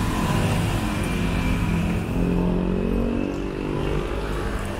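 A motor vehicle's engine passing close by on a city street, a steady engine note that falls a little in pitch as it goes past, over the general hum of traffic.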